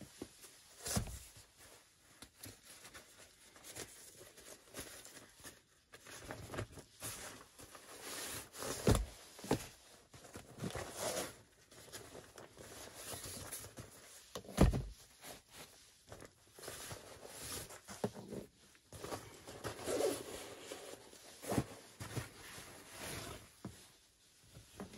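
Camping gear being unpacked by hand: nylon stuff sacks and dry bags rustling and being set down on a wooden sleeping platform, with a few louder thumps.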